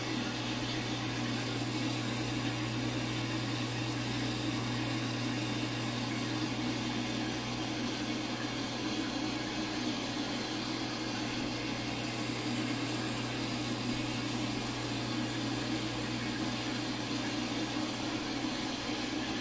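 Steady low hum with an even hiss, unchanging throughout, like a running machine in a small room.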